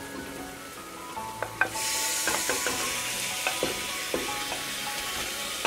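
Raw goat meat dropping into hot oil and onion-spice masala in an aluminium pressure cooker: a loud sizzle starts about two seconds in and keeps going, with a few light knocks as a wooden spoon pushes the meat off the plate.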